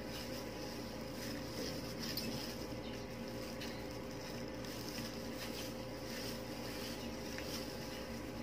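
Soft, irregular rustling and squishing of thin plastic gloves and a tint brush working straightening cream through hair, over a steady low hum.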